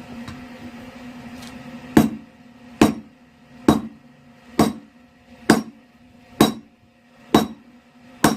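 Hand hammer striking hot rebar steel on an anvil, drawing the stock thinner: eight sharp, ringing blows at a steady pace of about one a second, starting about two seconds in. A steady low hum runs underneath.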